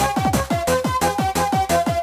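Fast electronic rave music in the makina style: a quick, steady kick drum under a repeating synth melody that steps between a few high notes.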